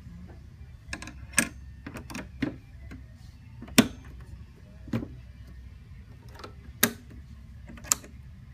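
Irregular sharp clicks and knocks, about eight of them, the loudest about four seconds in, as a MadStad quick-release windshield bracket and windshield are moved and set by hand on a Kawasaki Ninja ZX-14. A low steady hum lies beneath.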